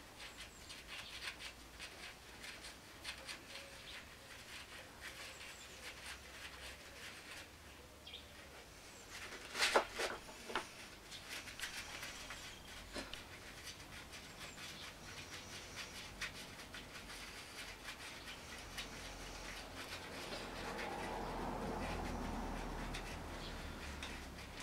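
Faint scattered clicks and small metal taps of hand work on a scooter's four-stroke cylinder head and valve gear, with a louder cluster of clicks about ten seconds in and a soft rustling swell near the end.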